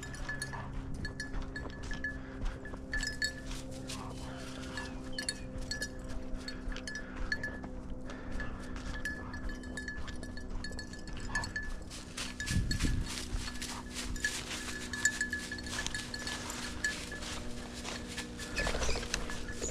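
A hunting dog's collar bell jingling on and off as the dog works through the cover, with small metallic clinks throughout.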